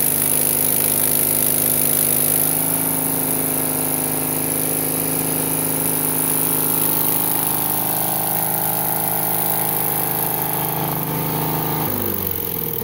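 Engine of a Miller engine-driven welder running steadily, under welding load for the first two seconds or so and then settling. About twelve seconds in it is switched off, and its pitch falls as it winds down.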